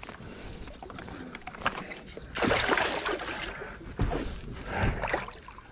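Hooked smallmouth bass thrashing and splashing at the water's surface. The biggest splash comes about two and a half seconds in and lasts about a second, with smaller splashes after it.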